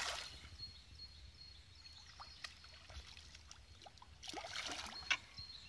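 Small common carp slurping at the water surface as it feeds on floating bread: faint sucking clicks and small splashes, louder for a moment a little after four seconds in.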